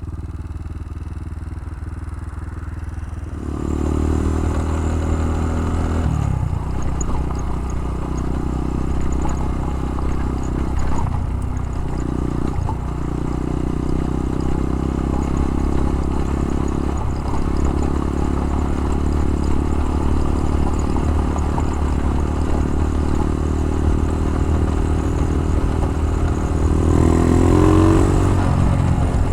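Single-cylinder four-stroke engine of a Honda Dax-style small motorbike being ridden. It runs low and quiet for the first few seconds, then pulls louder under throttle, with a few short throttle lifts and a climb in revs near the end. The exhaust has a leak.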